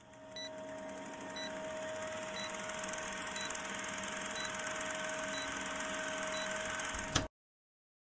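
Vintage film countdown sound effect: a steady projector-like hum and crackle with a short high beep once a second, seven beeps in all, ending in a click and cutting off suddenly about seven seconds in.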